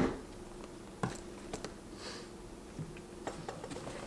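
Scattered knocks and light clicks of gear being handled on a countertop: a sharp knock at the start, another about a second in, then a few soft taps and a dull thump as a backpack is taken hold of.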